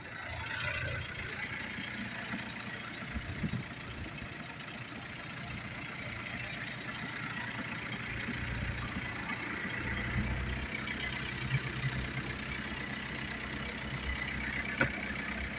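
Fishing boat's engine running steadily, a low hum that grows a little louder about two-thirds of the way through. A single sharp click near the end.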